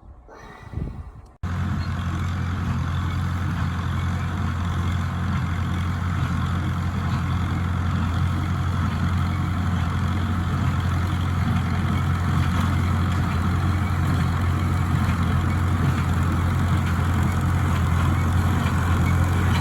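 A large engine running steadily at constant speed with a strong low hum. It cuts in abruptly about a second and a half in, after a short quieter stretch.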